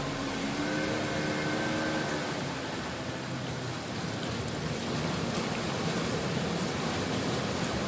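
Steady rushing noise of sea surf, with a passing engine fading away over the first two seconds.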